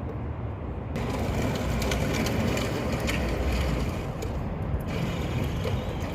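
Ratchet wrench clicking rapidly as a thermostat housing bolt is worked loose, with a steady low rumble underneath.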